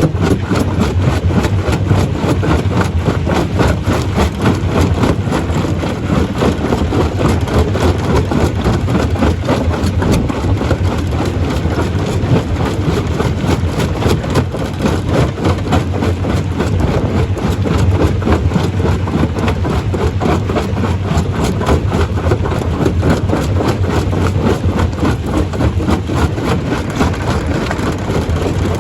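Stone crusher running under load: a steady, heavy machine drone with a dense, unbroken clatter of rock.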